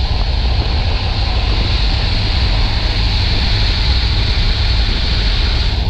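Road noise from a car travelling on a wet highway: a steady low rumble with an even hiss of tyres and spray on the wet pavement.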